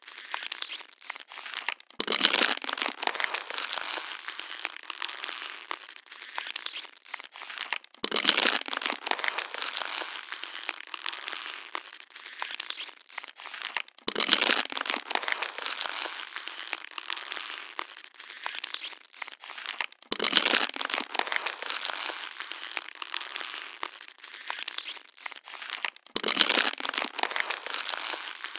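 Plastic water bottle being crushed and crinkled: a dense run of crackles, with a louder crunch about every six seconds.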